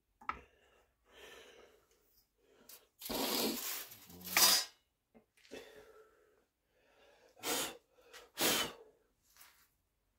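A person sneezing and breathing out hard: a long noisy burst about three seconds in that ends in a sharp, loud burst, then two shorter bursts of breath about a second apart near the end.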